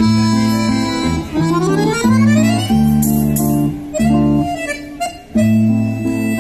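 Instrumental music: a melody over a steady bass line, with a run of rising notes about a second and a half in.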